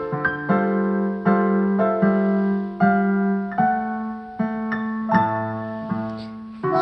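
Keyboard music, piano-like: chords struck one after another, each fading before the next, without singing.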